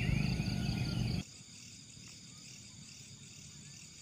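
Insects trilling steadily and birds chirping over a low rumble. About a second in, the sound cuts abruptly to a much quieter night chorus of insects alone, faint and steady.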